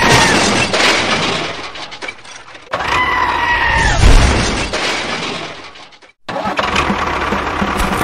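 A crashing, breaking sound effect heard twice, each time with a short high tone over it. From about six seconds in, a small motor runs steadily with an even rattle.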